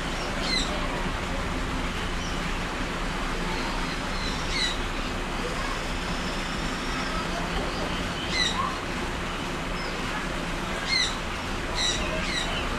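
Birds in an aviary chirping: short, sharp high chirps every few seconds, coming closer together near the end, over a steady background hiss.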